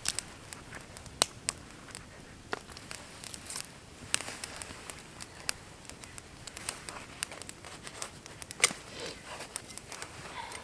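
Small wood campfire crackling, with sharp pops and snaps at irregular intervals.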